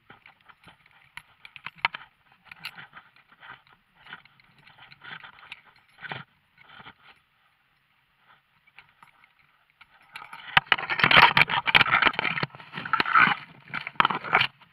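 Handling noise from the body-worn camera: faint scrapes and clicks at first, then a loud stretch of scraping and rubbing with clicks in the last four seconds, as zipline harness gear is unhooked close to the microphone.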